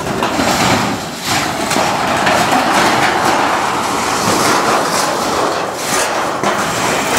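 Wooden skirting panel being wrenched off the base of a travel trailer and dragged away: a loud, continuous scraping and rattling broken by repeated knocks.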